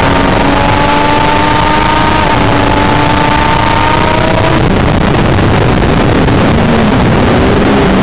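Triumph Daytona 675's three-cylinder engine at high revs, its note climbing slowly under heavy wind rush on the on-board microphone. About four and a half seconds in, the high note drops off abruptly and the engine runs on at a lower, unsteady pitch.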